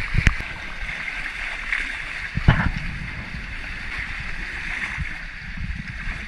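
Water rushing past the hulls of a Crowther Buccaneer 36 trimaran under sail, a steady hiss, with a couple of low thumps, the loudest about two and a half seconds in.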